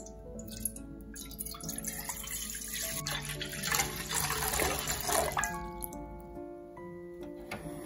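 Water poured in a thin stream into a wide nonstick pan, first splashing on the bare pan bottom, then splashing and gurgling into the gathering water. The pour grows louder toward the middle and stops about three-quarters of the way through. Gentle background music plays throughout.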